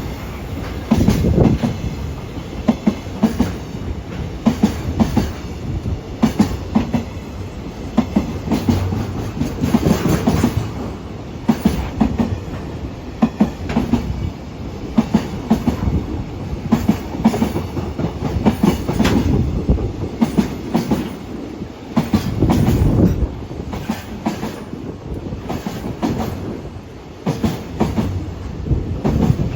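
Long freight train passing, its wagons' wheels clattering over rail joints in a steady run of repeated clacks over a low rumble.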